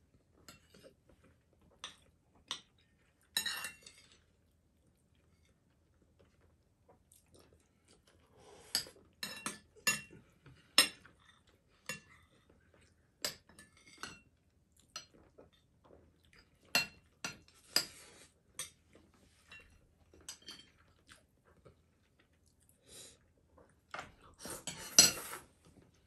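Spoons and chopsticks clinking and scraping against ceramic bowls and plates during a meal: scattered sharp clinks, a few of them louder, with a denser run of clatter near the end.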